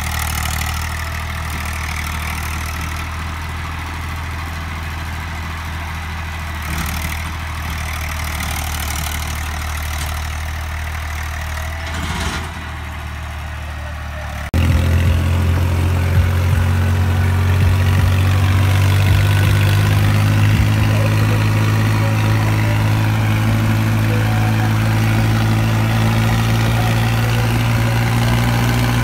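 Eicher 333 tractor engine running steadily while pulling a loaded sugarcane trolley. After a sudden cut about halfway through, a different, louder tractor engine runs steadily, heard from the driver's seat as a modified tractor drives along a road.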